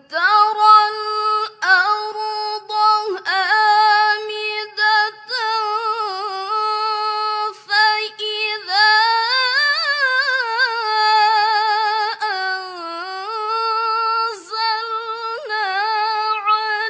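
A young woman reciting the Qur'an in the melodic tilawah style. She holds long, ornamented notes with a fast, tight waver, broken by brief pauses. About ten seconds in the pitch climbs to a high point and then settles back down.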